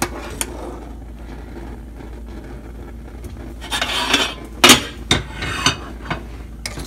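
Metal cookware clattering: a stainless steel lid and a metal spoon scrape about four seconds in, then one sharp clank and a few lighter knocks. Under it runs the low steady sound of water boiling in the pot.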